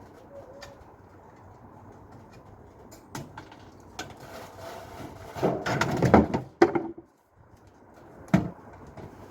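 Parts of a scrap dishwasher being handled during dismantling: scattered clicks and knocks, a loud rattling clatter about five and a half to seven seconds in, then a single sharp knock about a second later.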